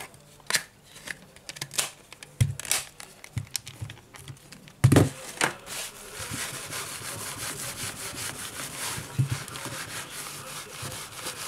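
A cloth rubbing back and forth over a smartphone's glass screen, a steady scrubbing from about halfway on. Before it come scattered small clicks and taps of the phone being handled, and a loud knock just before the rubbing starts as the phone is set down on the table.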